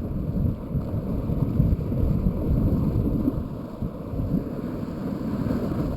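Wind buffeting the microphone: a low, fluctuating rumble.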